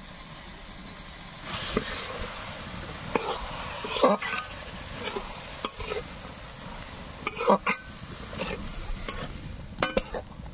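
Chopped onion leaves sizzling in a metal wok while a flat metal spatula stirs them, scraping and knocking against the pan at irregular moments. The sizzle grows louder about a second and a half in.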